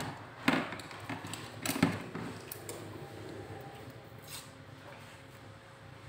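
Hand tools knocking and clinking as they are handled: a few light knocks in the first two seconds, then quieter handling noise.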